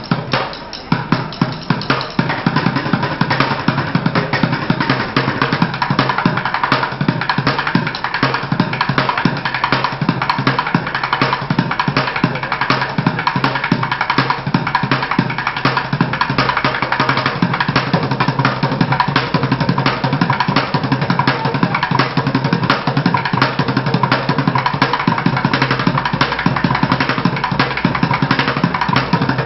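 Bucket drumming: a street drummer beating upturned plastic buckets in fast, dense, continuous rolls of sharp hits.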